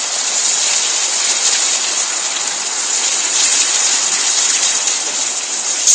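Fast-flowing river rushing over rocks: a steady, even hiss of white water.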